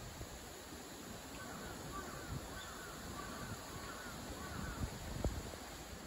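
A bird calling six or seven times in quick succession, over a steady low outdoor background, with a single knock near the end.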